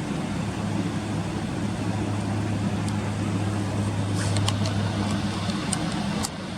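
Steady low mechanical hum over a background of even noise. A few short, faint high ticks come about two thirds of the way in, and the level drops slightly just before the end.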